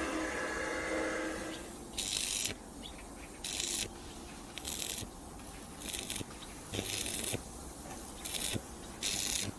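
Spray paint hissing in short bursts, about seven of them, each about half a second long and roughly a second apart. A power tool dies away over the first second or so.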